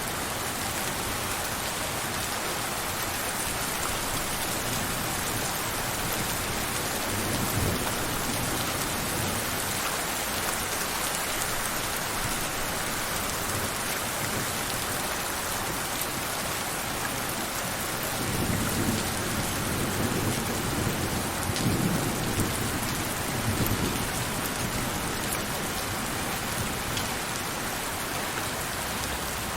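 Steady heavy rainfall hissing on surfaces, with low rumbles of distant thunder rolling in briefly about seven seconds in and again for several seconds around the twenty-second mark.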